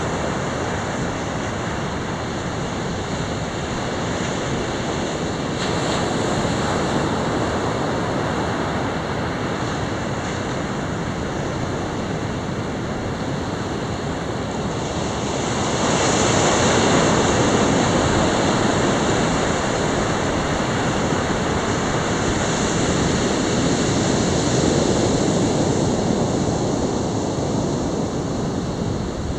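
North Sea surf breaking and washing up a flat sand beach: a steady rushing hiss that grows louder a little past halfway, as the foam of the waves runs right up to the microphone.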